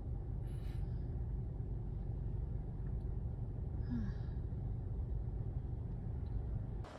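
Steady low rumble of a car's engine and tyres heard from inside the cabin while driving on a city road.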